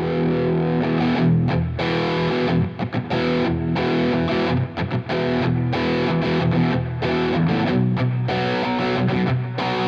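Distorted electric guitar played through a Scuffham S-Gear amp-simulator preset: sustained chords with a few short breaks.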